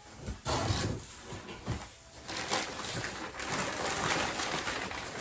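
Packaging being handled and pulled out of a freshly opened cardboard box: continuous rustling and crinkling with small knocks, easing briefly about two seconds in before picking up again.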